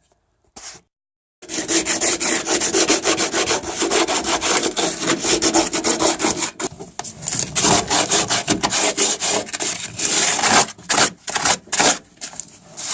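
Hand sanding block rubbed back and forth over cured fibreglass (chop strand mat and resin), in rapid rough strokes that start about a second and a half in, with a couple of brief pauses.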